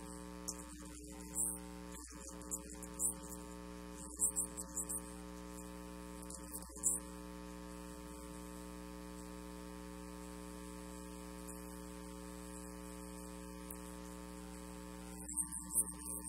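Steady electrical mains hum from the sound system, with a ladder of overtones, broken by a few short sharp clicks about a second in, around four and seven seconds, and near the end.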